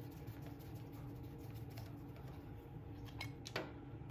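Quarter-inch nut driver turning out the screws of the breaker-points cover on a Briggs & Stratton small engine: faint small metal ticks, then two sharp metallic clicks about three and a half seconds in, the second the louder.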